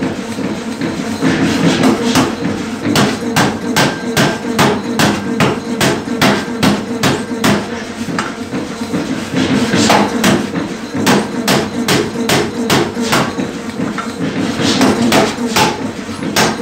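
Power forging hammer pounding a red-hot steel block into a 9-inch-square, 3-inch-thick plate, with rapid repeated blows about two to three a second. The machine keeps up a steady drone underneath.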